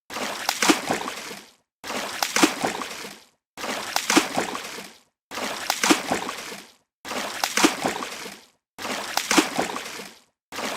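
Water splash sound effect repeated six times at even spacing, about every 1.75 seconds: each splash starts suddenly and dies away over about a second and a half, with a short silence before the next.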